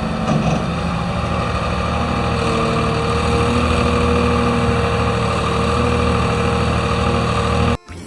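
Engine running steadily at idle with a constant hum, cutting off abruptly near the end.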